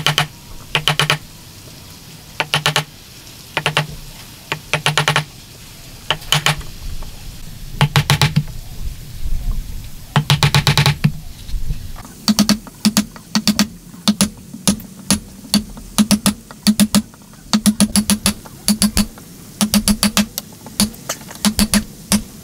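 Wood chisel driven into timber by a hammer, in quick bursts of rapid taps with short pauses, the bursts coming more often in the second half.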